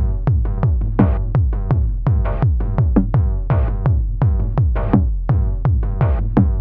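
Endorphin.es Queen of Pentacles Eurorack module playing a steady electronic drum-machine beat, about four hits a second, with deep kick-like tones that drop in pitch on each hit under a repeating pitched synth pattern.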